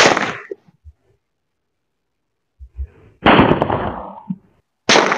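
Toy cork-and-cracker pistol firing firecracker caps: three sharp bangs, one right at the start, one about three seconds in that dies away more slowly, and one near the end.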